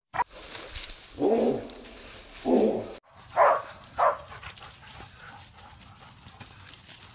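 Hunting dogs barking: two deep barks about a second apart, then two shorter, higher barks.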